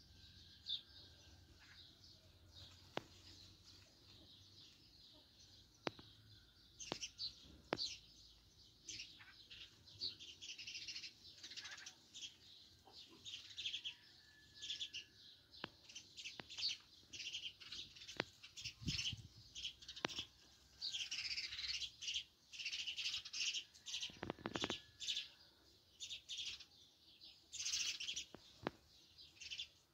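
House sparrows chirping in a flock: short high chirps, scattered at first, then a busy run of overlapping chirps from about seven seconds in.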